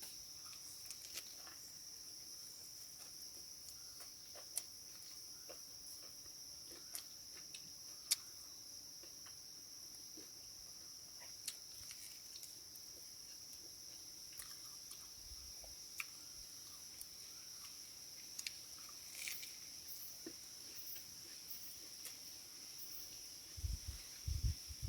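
Insects trilling steadily in one high, even pitch, with scattered small clicks throughout and a few low thumps near the end.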